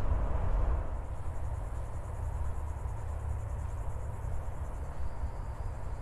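Insects trilling in a fast, even pulse over a steady low rumble; a thin, higher steady note joins about five seconds in.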